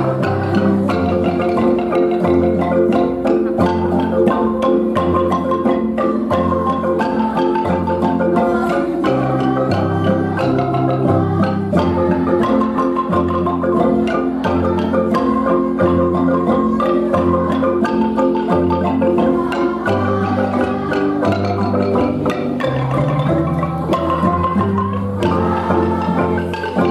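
Children's kolintang ensemble playing a hymn tune: wooden xylophones struck with mallets, melody notes over a steady beat, with bass kolintang notes stepping along underneath.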